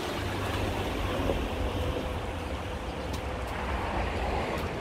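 Steady low rumble and hiss of outdoor street noise, with a faint steady hum.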